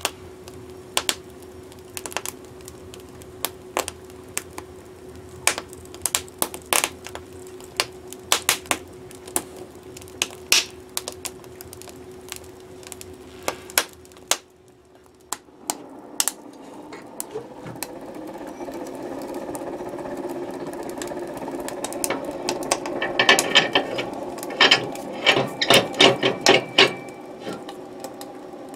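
Wood fire crackling and popping in an open wood stove. About halfway through the stove door is shut. The fire then builds into a steadily rising rush of draft, with a cluster of louder pops near the end.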